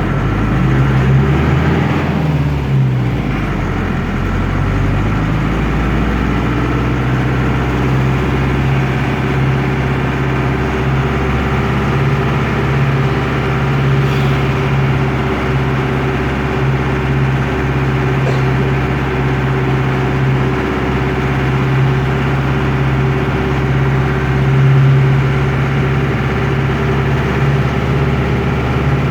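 The noisy air-cooled Deutz F4L912 four-cylinder diesel of an Otokar M-2000 minibus, heard from inside the cabin while the bus is under way. Its pitch rises and then drops in the first few seconds, then it runs loudly at steady revs.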